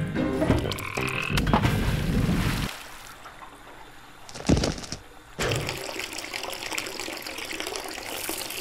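Water beads tipped from a plastic tub into a stainless steel sink, with one sharp loud clatter about four and a half seconds in; from about five and a half seconds a tap runs steadily into the sink.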